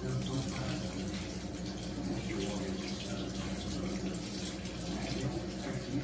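Water running steadily into the tub of a Panasonic NA-F140B6 top-loading washing machine as it fills during its tub-cleaning cycle.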